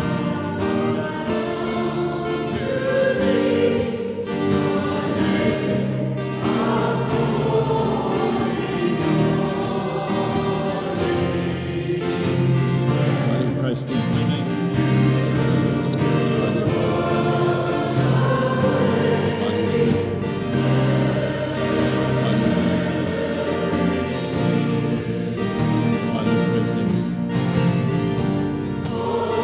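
Church choir singing a Communion hymn.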